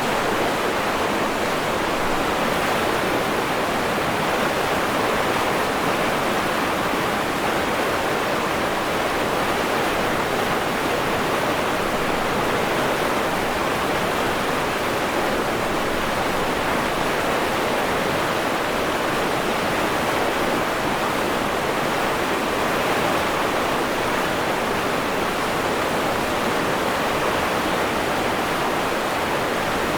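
River water rushing and babbling, a steady even flow of water noise.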